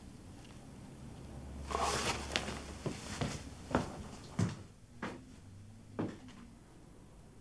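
A brief rustle, then a handful of light knocks and clicks spread over a few seconds, like things being handled, opened or set down in a small room.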